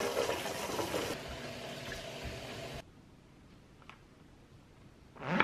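Kitchen tap running into a stainless steel colander of bean sprouts in the sink, steady for almost three seconds and then cut off suddenly. A short whoosh comes near the end and is the loudest single sound.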